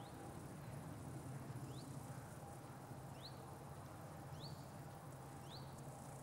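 A small bird gives short, high, thin call notes that rise in pitch, five of them spaced a little over a second apart, over a steady low hum.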